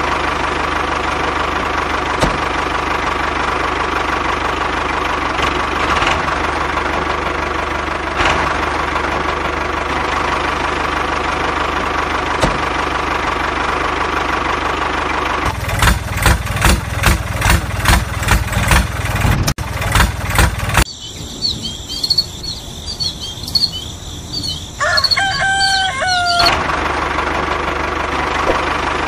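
Tractor engine running steadily, then chugging in even beats at about two a second for around five seconds before it cuts off. Small birds then chirp, and a rooster crows once near the end.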